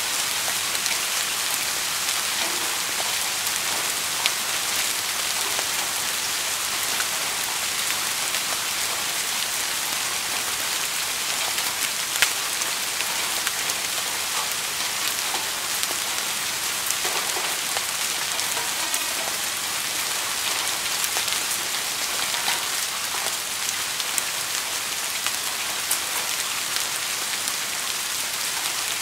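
Steady rain falling: an even hiss with scattered individual drops ticking, two of them sharper, about four seconds and about twelve seconds in.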